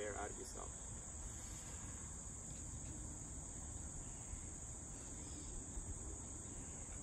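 Steady, high-pitched chorus of insects such as crickets, droning on without a break, over a low rumble.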